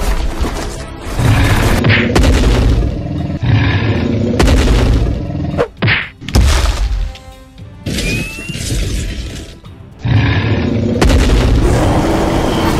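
Edited-in fight sound effects: a string of heavy booms and impacts, several in a row, over background music.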